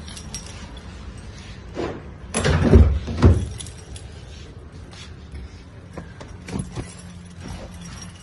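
Car keys jingling, then the car's driver door latch clunking open with a couple of heavy thumps about two and a half to three seconds in, followed by lighter knocks and clicks.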